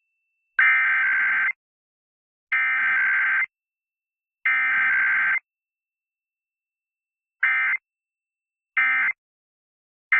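Emergency Alert System SAME digital data bursts, a harsh buzzing warble. Three bursts of about a second each carry the test's header code, then after a short pause three quick bursts carry the end-of-message code, with the last one starting near the end.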